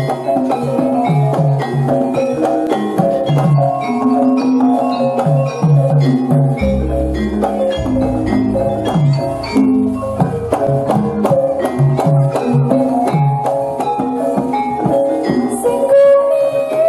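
Javanese gamelan ensemble playing: metallophones and gongs ringing in fast, busy patterns, with a deep low stroke about seven seconds in.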